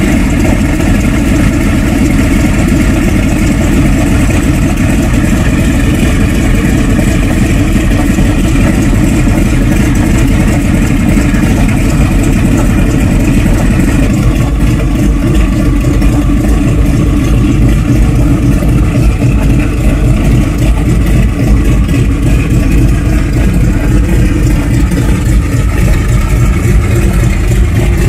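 Republic P-47 Thunderbolt's Pratt & Whitney R-2800 eighteen-cylinder radial engine running steadily and loudly, warming up just after a cold start.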